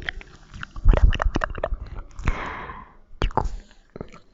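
Close-miked ASMR mouth sounds: a run of wet lip and tongue clicks and smacks, with a short breathy hiss about two seconds in.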